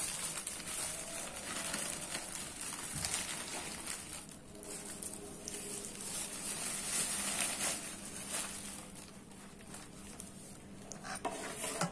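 Newspaper wrapping rustling and crinkling as hands open a packet of flatbread, in uneven bursts.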